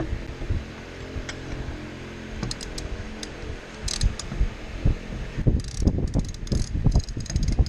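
Ratchet of an oil filter wrench clicking as the oil filter is worked loose, in a few scattered clicks and then quick runs of clicks in the second half. A steady low hum sits under the first half.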